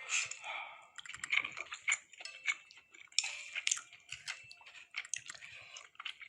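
Food-preparation sounds in a kitchen: a quick run of small clicks, taps and short rustles of utensils and ingredients being handled.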